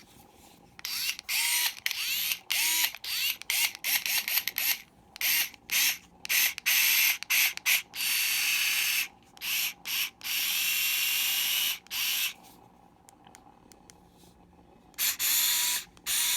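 Hyper Tough 4-volt straight-grip cordless screwdriver's motor spinning in many quick trigger blips and a couple of longer runs of a second or so, each start with a short rising whine. It stops for a couple of seconds, then starts blipping again near the end.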